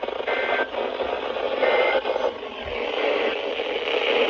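NOAA Weather Radio over a noisy, static-filled reception, with short bursts of the warbling SAME digital data tones that the Emergency Alert System sends between messages.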